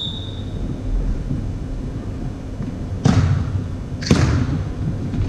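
Volleyball being struck twice, about a second apart: two sharp smacks that echo in a large gym hall.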